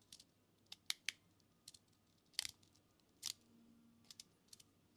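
Magnetic fidget slider being played with: a string of sharp, irregular clicks as its pieces snap together, about nine in all.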